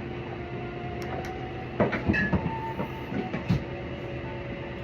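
Restaurant background: a steady droning hum with a few faint held tones, and a handful of light clicks and knocks about two seconds in.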